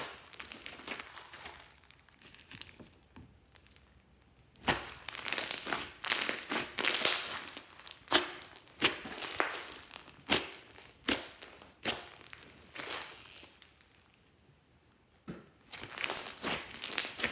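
Glossy slime being squeezed, stretched and folded by hand, giving off irregular sticky clicks, pops and crackles, with two short pauses.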